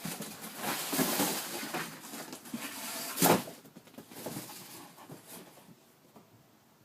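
A dog rummaging in a cardboard box, rustling and scraping with a louder knock about three seconds in; the rustling fades out near the end.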